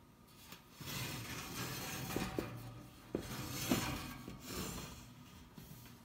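1960s Eskimo (McGraw Edison) 12-inch box fan running: the rush of air from its four-wing metal blades and a low motor hum swell up about a second in and ease off toward the end, with a few light clicks.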